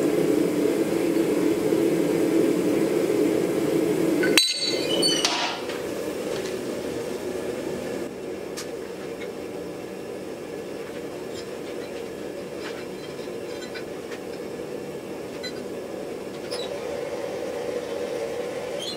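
A steady low drone of a running forge, loud at first and dropping to a quieter level at a sudden cut about four and a half seconds in. After the cut, faint scattered clinks come from the red-hot axe head as it cools.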